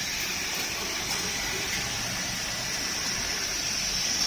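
Three-head wide belt sander with a 650 mm working width running, giving a steady rushing hiss.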